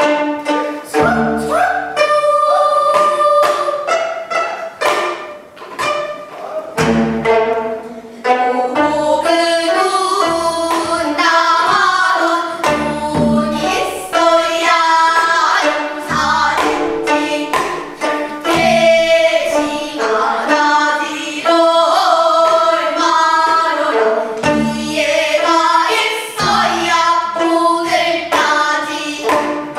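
Gayageum byeongchang: a group of young girls singing a pansori-style song while plucking their own gayageum zithers as accompaniment.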